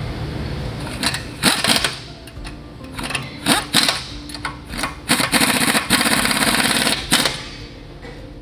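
Power driver with a socket spinning nuts down onto bracket bolts in several short bursts, the longest about two seconds near the end, while a wrench holds the bolt heads below.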